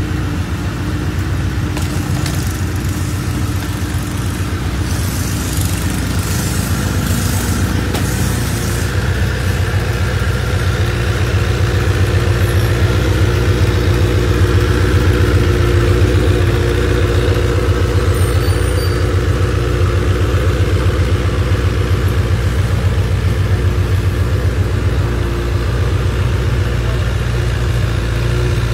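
Honda CBR1000RR inline-four sportbike engine idling steadily through its stock exhaust.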